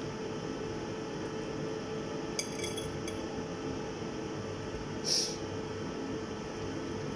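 Kitchenware clinking lightly once, with a short ringing tone, over a steady low hum; about five seconds in, a brief, louder scrape.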